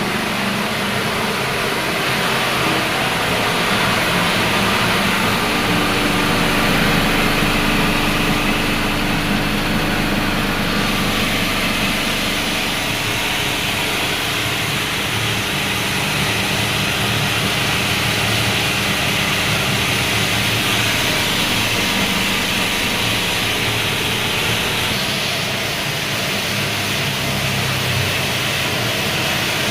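Bread-crumb (panko) crusher machine running steadily: a motor hum under an even rushing noise, which grows a little brighter about a third of the way in.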